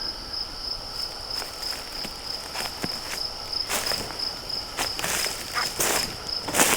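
An insect trills steadily in a fast, even, high-pitched pulse, while footsteps crunch and rustle through leaf litter on the forest floor, several steps in the second half.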